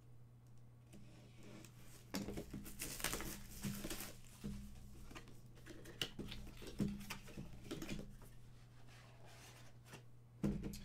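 Cardboard box of a Pop Vinyl figure being handled and opened by hand: a run of irregular rustles, scrapes and small clicks starting about two seconds in.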